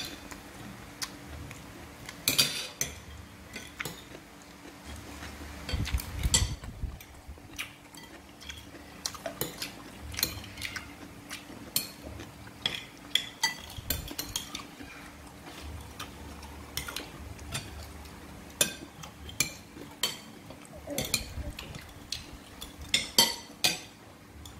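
Metal spoons clinking and scraping against ceramic plates and bowls during a meal, in irregular clinks with louder clusters here and there.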